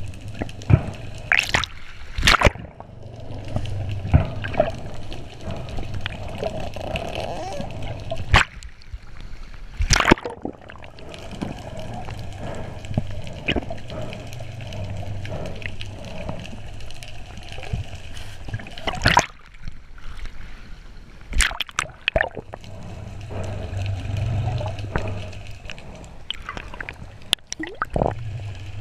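Muffled underwater sound picked up by a submerged camera: a steady low rumble of moving water, broken by scattered sharp clicks and knocks every few seconds.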